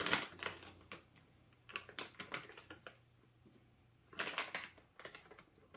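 Plastic Hello Panda biscuit pouch crinkling and crackling as it is handled and tugged at the top, in several short bursts of crackles, strongest at the start and about four seconds in.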